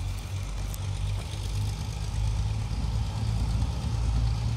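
Arcade & Attica diesel locomotive's engine running with a low, steady rumble, growing gradually louder as the train readies to depart.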